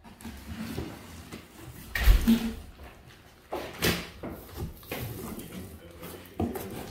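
A large cardboard box being handled and shifted: irregular knocks, bumps and scraping of cardboard, with louder thumps about two seconds in and again near four seconds.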